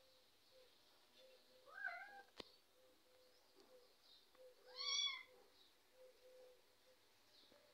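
Kitten meowing twice during rough play-fighting: a short call about two seconds in and a louder, longer one about five seconds in. A single sharp click comes just after the first call.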